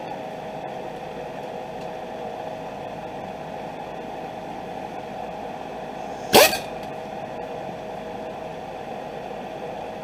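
A steady background hum, then about six seconds in one short, loud burst from a cordless impact wrench, a quick 'ugga dugga' snugging down a wheel hub assembly mounting bolt.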